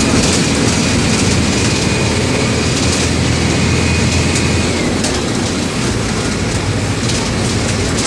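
Mercedes-Benz OM 924 LA four-cylinder inline diesel of an OF-1722M city bus running steadily under way, with light rattles. A thin high whine runs over it and drops away a little past halfway.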